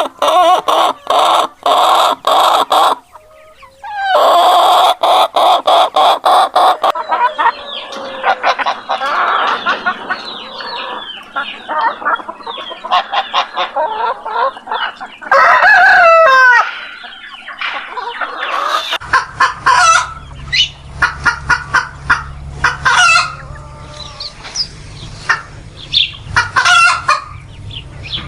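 Chickens calling: fast, repeated cackling at first, then mixed clucking, and a rooster crowing loudly once midway. Later, short high calls sound over a low steady hum.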